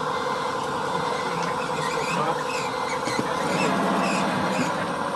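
Hydraulic tipping system of a 1/14-scale RC tipper truck running as the dump bed lifts: a steady buzzing hum that grows stronger about three and a half seconds in, with short high squeaks over it.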